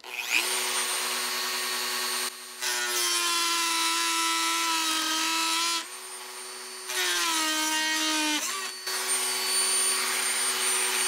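Dremel 4000 rotary tool switched on, its motor whining up to a steady high speed. A thin metal cutting disc grinds against metal in two stretches, the motor's pitch dropping under the load. A few seconds before the end the grinding stops as the brittle disc breaks apart, and the motor runs on freely at full pitch.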